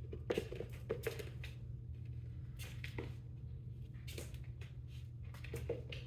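Irregular light clicks and rustles as a cat plays with a Da Bird feather wand toy, the feathers swishing and paws and toy striking the floor, over a steady low hum.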